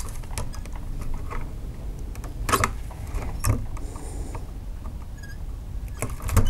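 Wire stripper working the end of an insulated copper wire to strip off more insulation: light clicks and scrapes of the tool's jaws, with two clearer clicks about a second apart in the middle and another near the end.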